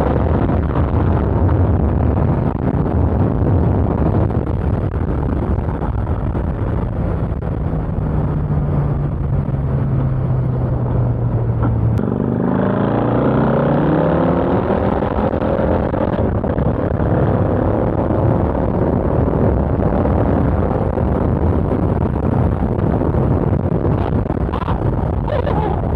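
Yamaha FZ-09's three-cylinder engine and wind rush while riding: the engine note sinks as the bike eases off, then about halfway through it climbs again under acceleration.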